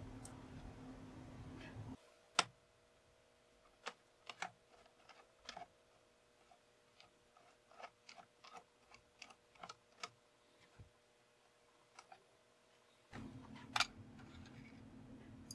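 Faint, irregular small metallic clicks and ticks from a screwdriver working the screws out of a rifle's metal forend cap, about a dozen spread through the middle, with a sharper click near the start and another near the end.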